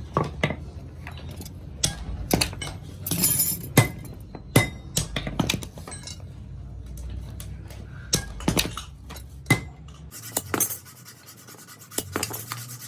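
Metal clinking and tapping of small metal parts and hand tools being handled, irregular sharp knocks, some ringing briefly. About ten seconds in, the low hum underneath gives way to a steady hiss.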